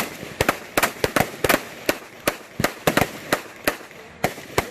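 Gunfire: a rapid, uneven string of about fifteen sharp shots in under five seconds.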